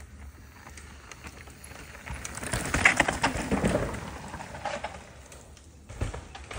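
Mountain bike riding over a dirt trail: tyre noise with a dense clatter of rattles and knocks. It swells louder about two to four seconds in, then eases, with one sharper knock near the end.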